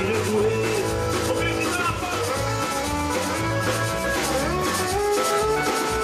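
Live Tex-Mex rock band playing an instrumental passage without vocals: electric guitar and accordion over a steady beat from drum kit and congas.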